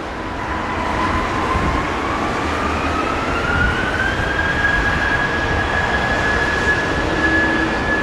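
Jet airliner engines: a steady roar of jet noise with a thin whine that rises in pitch over about four seconds and then holds steady.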